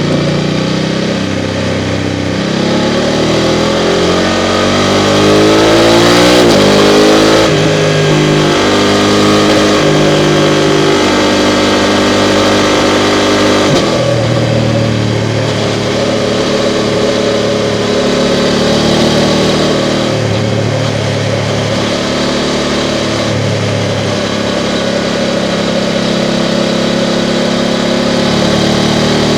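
BMW F 750 GS motorcycle's 853 cc parallel-twin engine running under way, its revs climbing over the first several seconds, then shifting between steadier speeds with a drop about fourteen seconds in, over wind and road noise.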